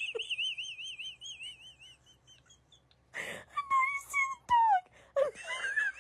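A high wavering whistled tone with a fast vibrato, broken about three seconds in by a short hiss, a few lower sliding notes and a click, then the high wavering tone comes back near the end.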